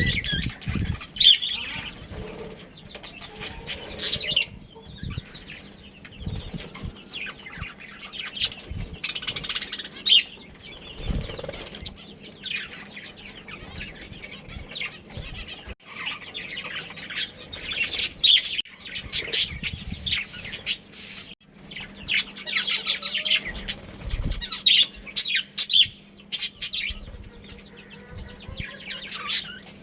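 A flock of budgerigars chirping over one another in many short, high, irregular calls, with wing flapping and scattered low thumps as birds move about.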